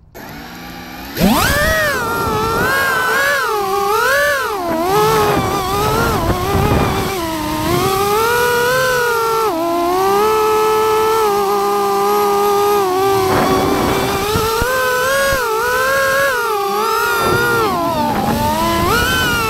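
FPV quadcopter's electric motors and propellers, heard from the drone's own frame: they spin up about a second in for takeoff, then a buzzing whine that rises and falls in pitch with the throttle through the flight.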